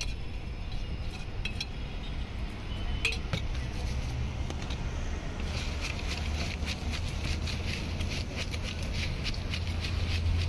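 Spoon stirring spiced puffed rice (jhal muri) in a plastic mug. A few scattered clicks come first, then from about halfway through a fast, continuous clatter of spoon against mug. A steady low hum runs underneath.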